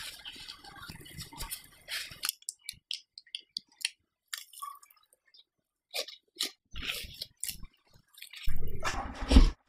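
Soft, sticky squishing of gloved hands folding chocolate-spread dough on a wooden board for the first couple of seconds, then scattered light clicks and taps. Near the end comes the louder crinkling rustle of plastic cling film being wrapped around the dough.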